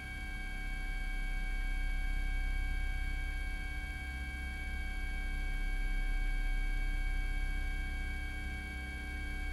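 Helicopter in flight: a low, heavy rotor drone under several steady whining tones, the whole slowly swelling and fading.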